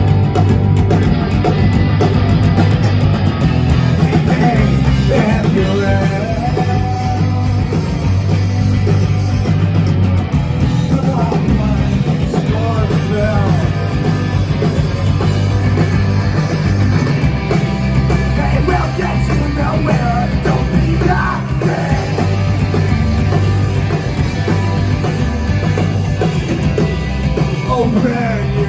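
Live rock band playing loudly through stage amplification: distorted electric guitars over a drum kit.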